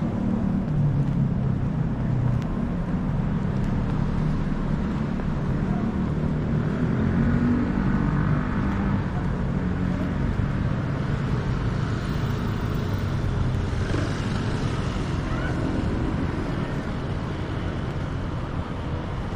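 City street traffic: car engines running and passing, a steady low drone with no sharp events.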